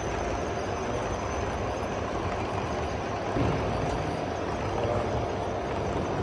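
O gauge model train running on an exhibition layout, heard as a steady rumbling hiss with a faint steady whine, over the hall's background noise; a single knock about three and a half seconds in.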